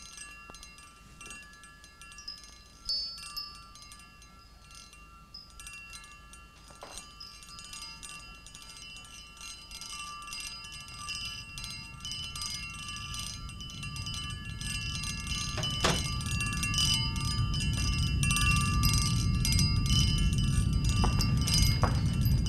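Glassware trembling and ringing: many thin, sustained chiming tones with occasional sharp clinks. From about halfway a deep rumble swells steadily louder beneath the ringing, the approach of low-flying jet aircraft that sets the glasses vibrating.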